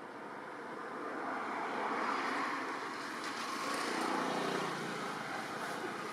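Engine noise of a passing motor vehicle: a rushing sound that swells about a second in and stays loud, with a faint low hum underneath.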